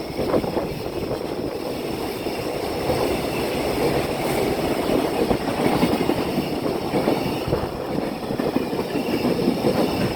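Freight train hauled by an EH500 'Kintaro' electric locomotive passing close by, its wagons rolling past in a steady, loud rumble and rattle of wheels on the rails.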